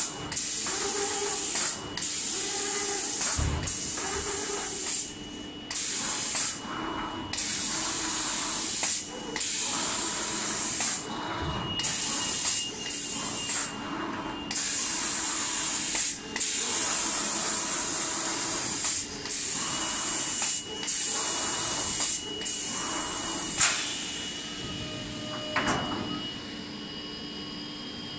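Spray gun of an automatic cabinet-door painting machine hissing as it sprays in passes, breaking off briefly every second or two. The spraying fades out about 24 seconds in, leaving a steady machine hum.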